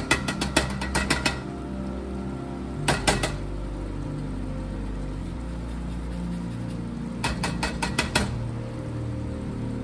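Handheld rasp grater zesting a lemon over a pot: three quick runs of sharp metallic clicks and scrapes, the first about a second long at the start, a short one about three seconds in and another near the end. Low background music runs underneath.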